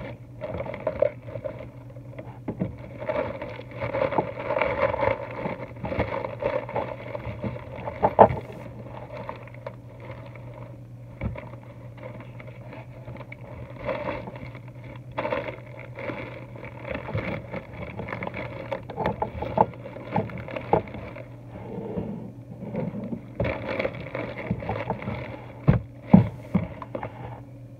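Phone microphone being handled and brushed by an arm and clothing: irregular rustles, scrapes and knocks over a steady low hum.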